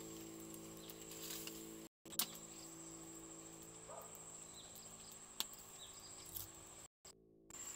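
Insects chirring faintly with a steady high tone, with a few sharp clicks or knocks, the loudest about two seconds in.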